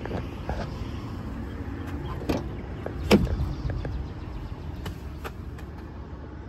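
Pickup truck cab door being unlatched and opened: a sharp click about two seconds in, then a louder clunk a second later, over a steady low rumble.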